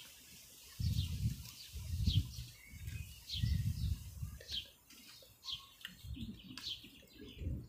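A small bird chirping over and over, short falling chirps about every half second to a second, over repeated low dull thumps and rumbles that are louder than the chirps.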